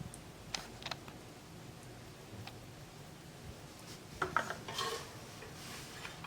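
Faint clinks and taps of kitchen utensils against dishes: two light clicks about half a second in, then a short cluster of clinks and scraping around four to five seconds in.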